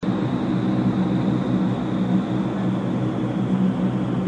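Vertical wind tunnel for indoor skydiving running: a steady rush of air from its fans with a low hum underneath and a faint high whine.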